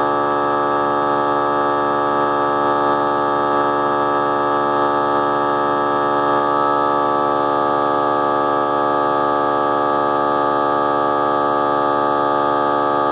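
Small 3-gallon air compressor running steadily with an even, pitched hum as it refills its tank to catch up with the airbrush's air use.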